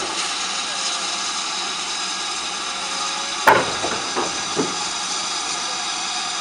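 Southern U class 2-6-0 steam locomotive 31806 hissing steadily as it buffers up tender-first to stock. About halfway through the buffers meet with one sharp metallic clank, followed by two or three smaller knocks.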